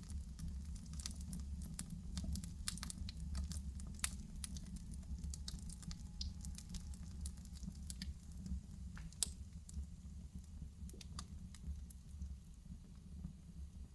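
Wood fire burning in a fireplace: irregular sharp crackles and pops over a low steady rumble of the flames, the crackles growing sparser toward the end.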